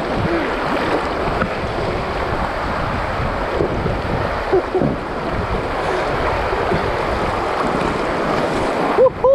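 River water flowing and splashing around an inflatable boat, with wind buffeting the microphone. A few short squeaky chirps break through, and a louder one comes near the end.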